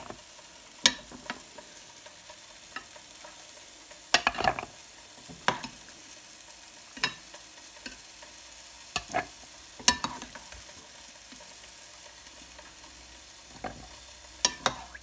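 A metal spoon clinking and scraping against a glass bowl and a plastic chopper bowl as milk-soaked walnuts are scooped out and dropped in: a dozen or so sharp taps at irregular intervals, over a faint steady hiss.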